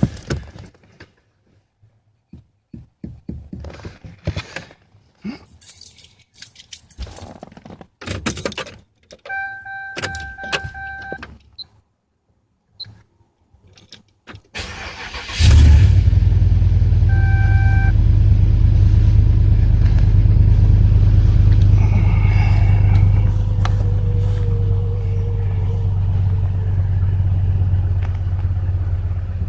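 Small clicks and rattles, then a short electronic chime, before the Pontiac Grand Prix GXP's 5.3 L LS4 V8 starts about halfway through with a loud flare and settles into a steady idle. This is the first start after the accelerator pedal assembly was replaced to cure a P2138 reduced-power fault.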